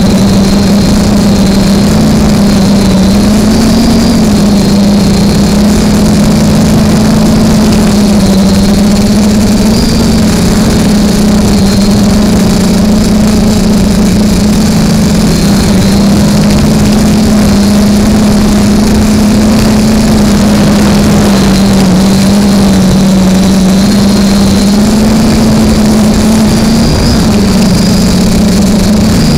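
Alien v2 FPV quadcopter's electric motors and propellers buzzing, picked up close by its onboard camera. The pitch wavers a little up and down as the throttle changes.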